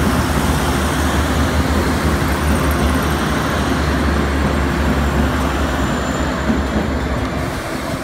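Diesel passenger railcar train passing close by: a steady low engine drone with the rumble of wheels on the rails.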